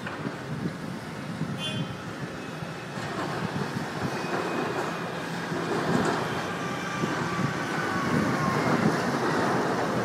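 Diesel engines of heavy demolition plant, a tracked excavator and a JCB telehandler, running steadily. The sound grows louder from about three seconds in, with a faint falling whine near the end.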